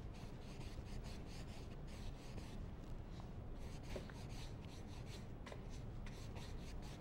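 Paintbrush stroking oil paint onto a stretched canvas: faint, repeated short strokes at an irregular pace.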